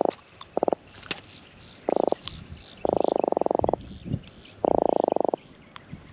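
Atlantic croaker out of the water, croaking as it is handled. It gives five buzzy drumming grunts made of rapid pulses: three short ones, then two longer ones of nearly a second each, drummed on its swim bladder.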